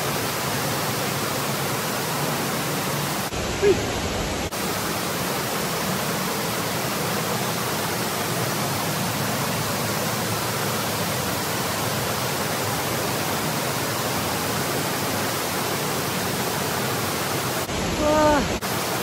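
Cave waterfall: a steady, even rush of falling water.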